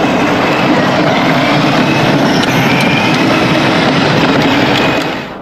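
Battery-powered ride-on toy motorcycle and quad running along a concrete path: a steady electric-motor and gearbox whine under the loud rumble of hard plastic wheels on concrete. It cuts off abruptly near the end.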